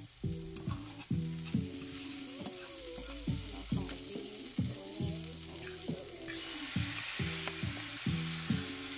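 Bell pepper strips sizzling in a hot frying pan. About six seconds in, the sizzle gets louder as seasoned shrimp are tipped into the pan. Background music with a steady beat plays underneath.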